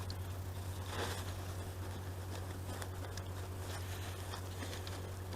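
Faint small clicks, scrapes and rustles of hands and parts being handled during hands-on work on a gearbox, with a slightly louder knock about a second in, over a steady low hum.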